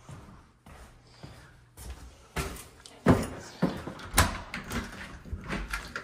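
A back door being unlatched and opened: a quiet start, then a run of sharp clicks, knocks and rattles from the latch and door from about two seconds in, the loudest about three and four seconds in.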